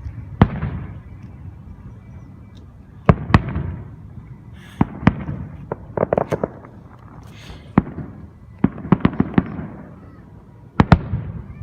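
Fireworks going off: a string of sharp bangs, some single and some in quick clusters of crackling pops, each followed by a short low rumble.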